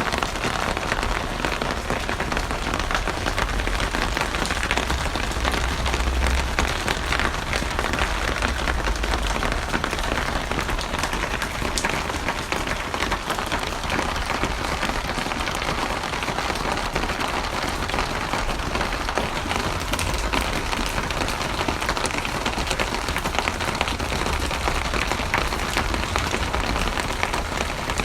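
Steady, heavy rain falling on a hard surface, with a dense patter of drops and a low rumble underneath.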